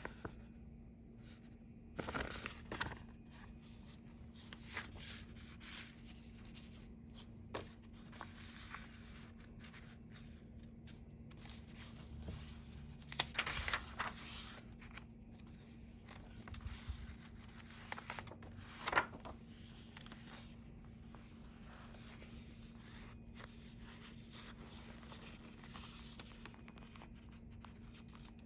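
Paper pages and inserts of a handmade junk journal being handled and turned: soft rustles and crinkles coming in scattered bursts, loudest about halfway through and again a few seconds later.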